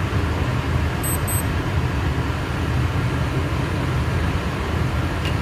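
Steady rushing hum of a biosafety cabinet's blower and airflow, deepest in the bass.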